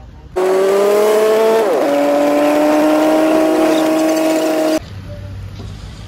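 Loud vehicle-engine sound, its pitch creeping up and then falling sharply about a second and a half in, as a fast car passing by does, then holding steady until it cuts off abruptly.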